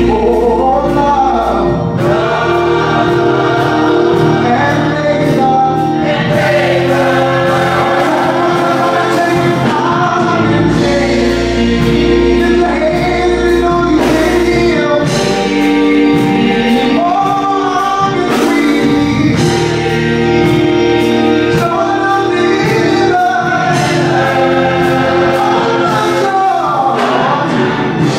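Mixed gospel choir, men's and women's voices, singing in harmony through microphones, with a male lead at the centre microphone.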